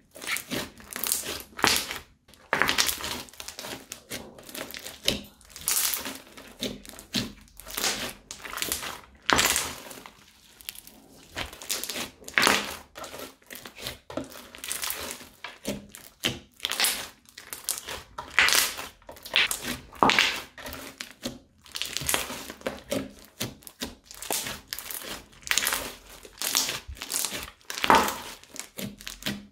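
Thick crunchy slime with small beads mixed in, being kneaded and squeezed by hand: short crackling, crunching squishes, about one a second.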